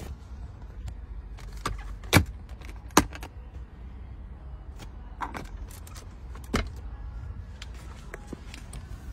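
A few sharp clicks and knocks from the rear cabin's fittings being handled, the two loudest about two and three seconds in, over a low steady rumble.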